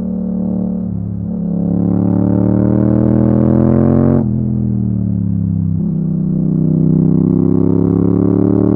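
Yamaha MT-07's parallel-twin engine through an Akrapovic exhaust, under acceleration. The engine note climbs for about three seconds, drops sharply at a gear change just past four seconds in, then pulls and rises again.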